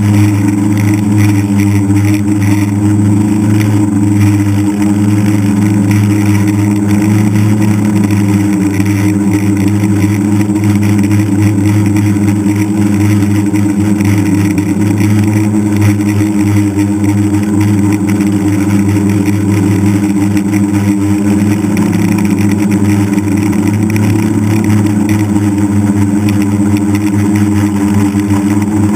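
DJI Flame Wheel F550 hexacopter in flight, heard from on board: the steady buzzing hum of its six electric motors and propellers. The pitch wavers slightly as the craft manoeuvres.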